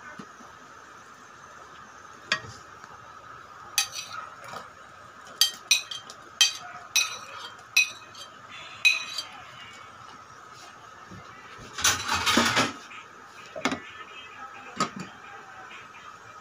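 A metal spoon clinking against an aluminium cooking pot and a plate as food is scooped out: a run of sharp clinks, then a longer clatter about twelve seconds in as the pot's glass lid goes back on, and a couple of lighter knocks after.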